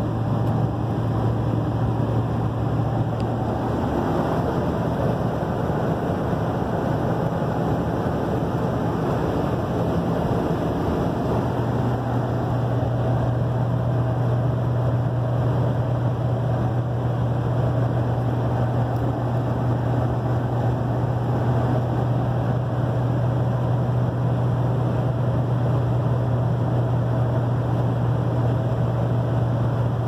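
Steady engine drone and road noise from inside a vehicle cruising at highway speed, with a low, even hum beneath the tyre rush.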